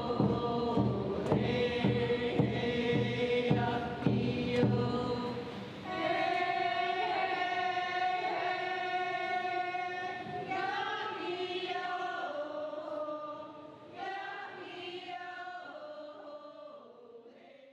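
Background music of voices singing together in a chant-like choir, over a steady beat for the first five seconds or so, then long held sung notes that fade out near the end.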